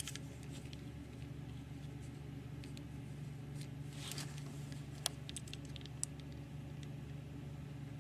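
A few faint, sharp clicks and a brief soft rustle from handling a small novelty lighter, over a steady low electrical hum.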